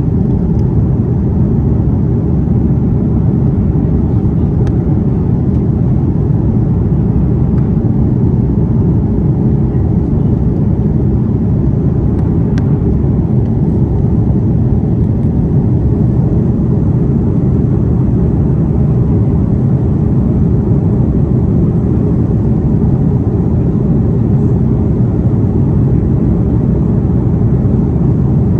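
Steady low rumble of engine and air noise heard inside the cabin of an Airbus A330 airliner, unchanging in level throughout.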